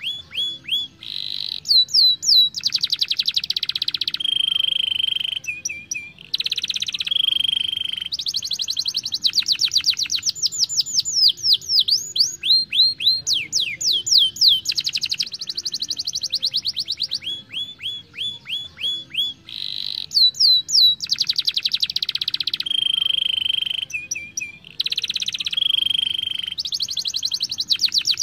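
Domestic canary singing a long, fast song made of runs of rapidly repeated notes. Falling whistled sweeps alternate with dense buzzy trills and rolls, and the song switches to a new run every second or two.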